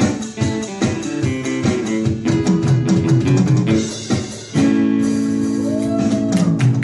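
Two acoustic guitars and an electronic drum kit playing an instrumental: the guitars run down a descending line, then land on a held chord about four and a half seconds in, with drum hits over it, as the tune closes.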